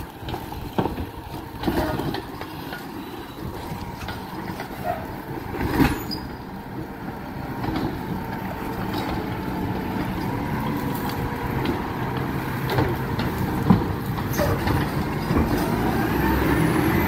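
Garbage truck engine running and growing steadily louder, with scattered sharp clanks and knocks, the loudest about six seconds in and again near fourteen seconds.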